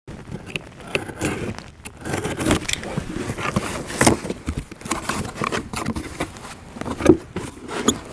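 Handling noises: an irregular run of clicks, knocks and rustling scrapes as tool packages are moved about and handled.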